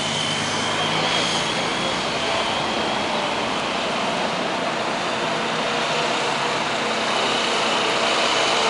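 Steady road-traffic background noise, an even rush with no single event standing out.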